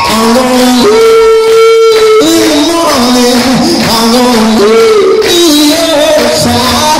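Male voice singing wordless, held and sliding notes over live music.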